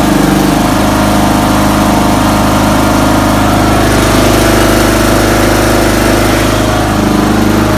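Briggs & Stratton Intek engine of a zero-turn riding mower, running steadily just after starting. Its carburetor has a freshly replaced inlet seat and float needle.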